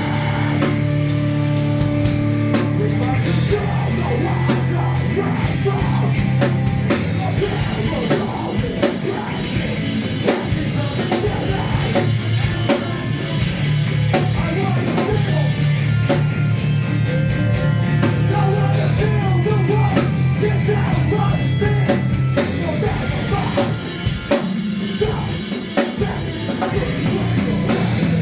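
Live rock band playing loudly: drum kit with busy cymbals, distorted guitar and held bass notes, with some vocals.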